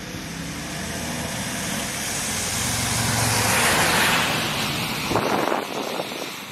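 A road vehicle drives past close by. Its engine and tyre noise swell to a peak about four seconds in, then fade.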